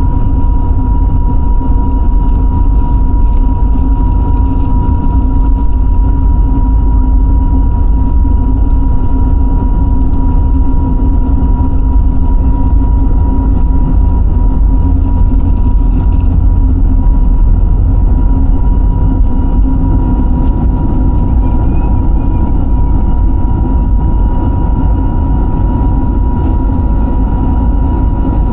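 Airliner cabin noise heard from a window seat: the engines and airflow give a loud, steady low rumble with a constant whine over it.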